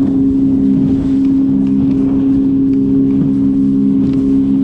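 Electric trolling motor running at a steady speed, a constant hum, over a wash of wind and water noise.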